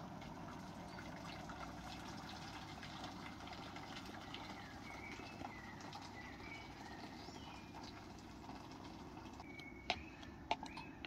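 Small birds chirping in short, repeated phrases over a faint steady hiss, with a couple of sharp clicks near the end.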